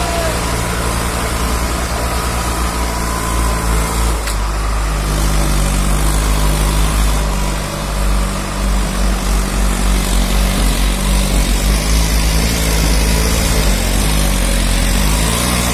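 Diesel tractor engines running hard as a Mahindra Arjun 605 pulls a loaded sugarcane trolley with a second tractor towing it on a cable. The engine sound is steady with a slight throb, and the note changes about four seconds in.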